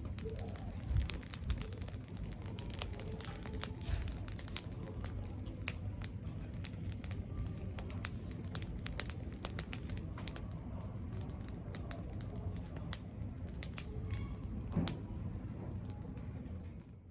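Campfire of dry fallen leaves and twigs burning, crackling with many small irregular pops over a steady low rush, fading out near the end.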